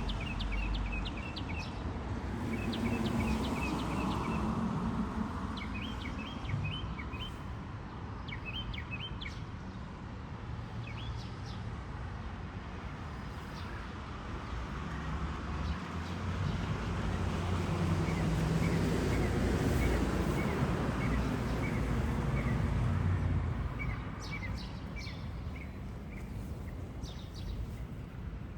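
Small birds chirping in quick short series of high notes, over a steady low rumble of outdoor background noise.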